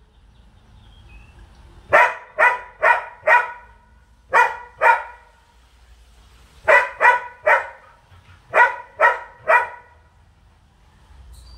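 German Shepherd barking up at a gray langur monkey, twelve sharp barks in quick groups of four, two, three and three.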